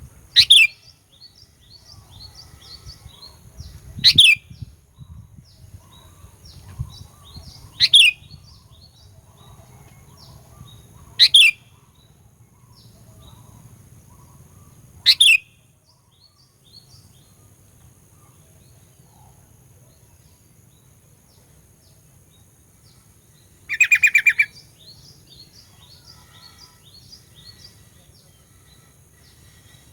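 Sooty-headed bulbul (kutilang) calling: a loud, sharp call repeated about every four seconds, five times, then a quick run of notes about 24 s in, with softer chirping in between. These are aggressive 'fighter' calls used to lure and provoke rival bulbuls.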